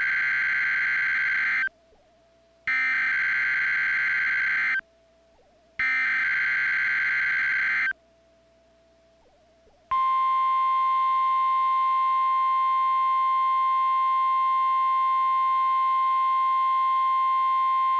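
NOAA Weather Radio emergency alert activation. Three bursts of SAME digital header data, each a harsh warbling tone about two seconds long with a second's gap between them, are followed about ten seconds in by the steady 1050 Hz warning alarm tone. Together they signal the issuing of a Tornado Warning, here a test warning.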